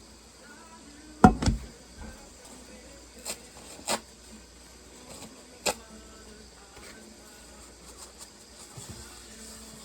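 Kitchenware being handled: a loud knock about a second in, then three lighter clinks over the next few seconds, over a faint steady hiss.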